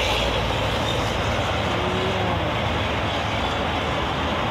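Steady noise of multi-lane highway traffic, with cars, vans and trucks passing continuously.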